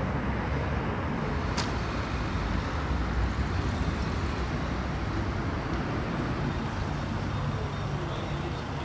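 A motor-vehicle engine running steadily with a low hum, over road-traffic noise, and a single short click about a second and a half in.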